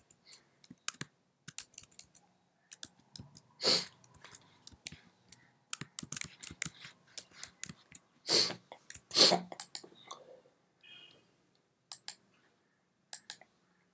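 Computer keyboard typing: an uneven run of key clicks with short pauses, as a word is typed. A few louder knocks stand out among the clicks.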